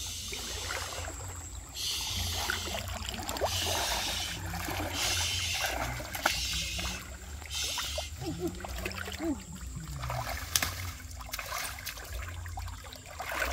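River water splashing and trickling in several short bursts of about a second each, with scattered small knocks, as someone works through shallow stream water by hand.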